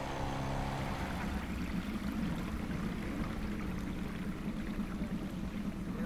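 Small boat moving on the water: a steady wash of water with a low, even hum underneath.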